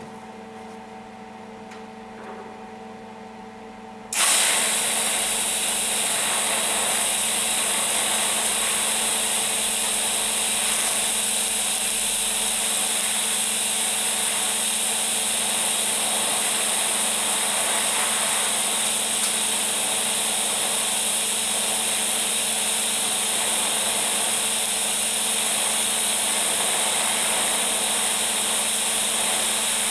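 A steady electrical hum from the welding machine, then about four seconds in a loud, even hiss starts abruptly and holds steady: a TIG welding arc on a sheet-steel patch.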